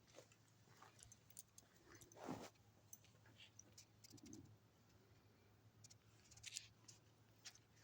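Near quiet: a sleeping dog's faint sounds, scattered small clicks and a soft huff of breath a little over two seconds in.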